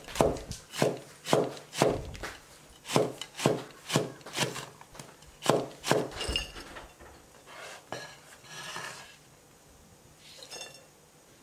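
Chinese cleaver slicing long green chili peppers into rings on a wooden cutting board: sharp chops of the blade hitting the board, about two a second, then a few fainter knocks over the last few seconds.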